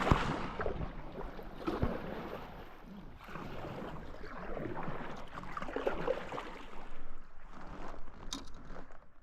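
Water sloshing and splashing around a moving kayak, swelling and easing every second or two.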